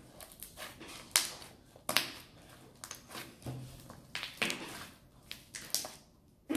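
A large mass of slime being squeezed and kneaded by hand, with irregular wet squelches and sharp little pops and clicks as it is pressed and folded.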